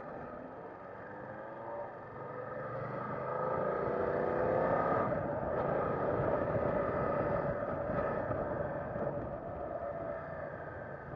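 BMW F 900 R's parallel-twin engine accelerating, its pitch and loudness climbing from about two seconds in for a few seconds, then holding at a steady cruise and easing off slightly near the end.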